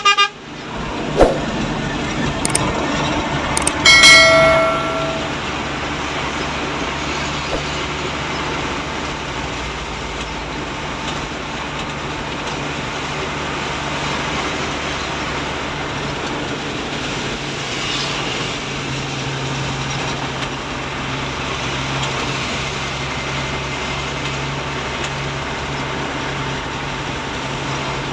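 Steady engine hum and wet-road and rain noise inside a tow truck's cab while it drives in the rain. About four seconds in, a horn sounds once for about a second, the loudest sound. A few sharp clicks come in the first few seconds.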